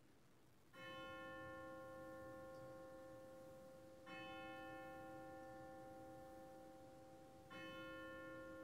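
A bell struck three times, evenly about three and a half seconds apart. Each stroke is faint and rings on, slowly fading, until the next.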